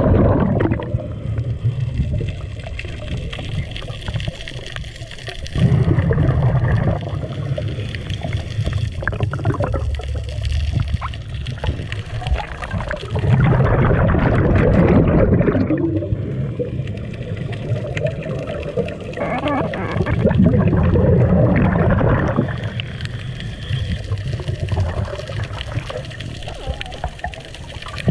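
A diver's exhaled bubbles rushing and gurgling past the underwater camera in loud swells about every seven seconds, with a dull underwater rumble between them.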